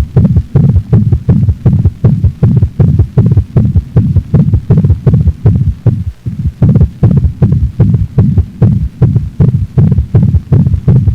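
A dog's heart sounds, recorded for auscultation teaching: a fast train of low lub-dub beats, several thumps a second, with a brief hitch about six seconds in.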